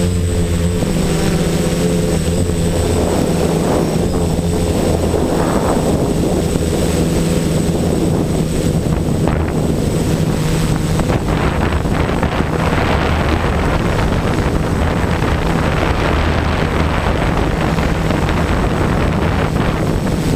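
An F450 quadcopter's electric motors and propellers running steadily in flight, heard from the GoPro mounted on its frame. It makes a continuous droning buzz, and its lower hum swells and fades now and then as the throttle shifts.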